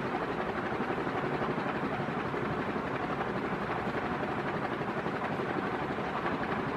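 NuTone Proline 2 56-inch commercial ceiling fan running, a steady rush of moving air from its blades.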